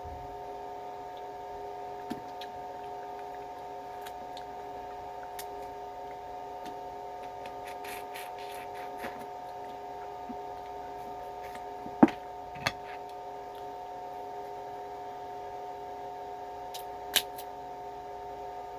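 A steady electrical hum made of several held tones, with a few sharp clicks or knocks, the loudest about twelve seconds in.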